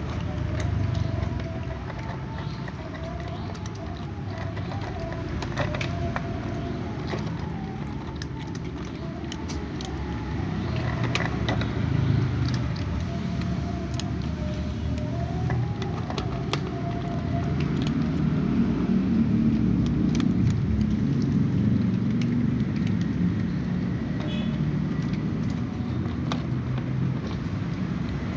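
Two cats eating dry kibble from a plastic container, with scattered small crunching clicks, over a steady low rumble like a running engine or traffic that grows louder in the second half.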